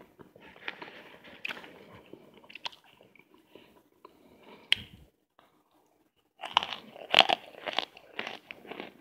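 Cornstarch chunks being bitten and chewed: dry, crumbly crunching in short crackly bursts. It pauses briefly about five seconds in, then comes back as a louder, denser run of crunching bites.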